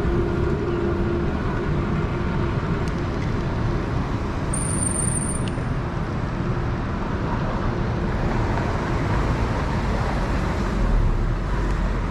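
Steady city traffic and road noise heard from a moving bike, with a low wind rumble on the microphone. A short high-pitched tone sounds about four and a half seconds in.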